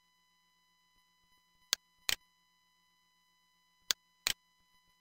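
Computer mouse button clicking: two pairs of sharp clicks, the clicks in each pair about a third of a second apart, over a faint steady high whine.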